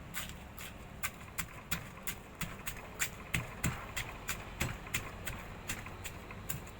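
Pestle striking fried chicken in a mortar over and over, smashing it for ayam geprek: a steady run of sharp knocks, about three to four a second.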